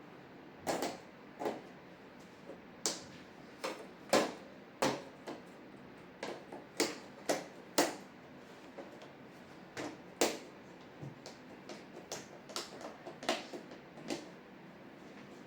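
Irregular light clicks and taps of TV parts being handled and fitted together during reassembly of an LCD television, a dozen or more sharp knocks at uneven intervals.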